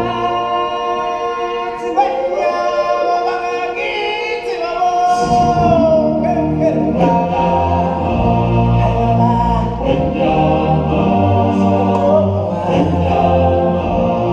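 A choir of live stage performers singing long held notes in harmony; about five seconds in, a deep bass and a beat join the singing.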